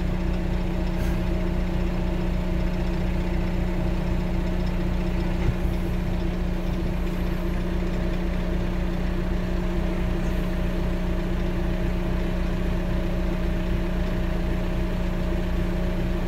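650 crawler dozer's diesel engine idling steadily, with an even low throb and a constant hum.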